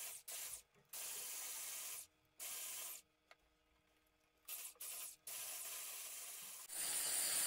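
Electric hand blender with a wire whisk attachment whirring as it beats flour into cake batter in a glass bowl. It runs in about seven short stretches with brief silent gaps, the last one near the end a little louder.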